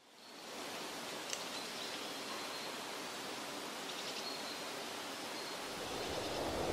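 Steady outdoor ambience, an even hiss, fading in from silence at the start and growing a little louder near the end. A few faint, short, high-pitched chirps sound over it.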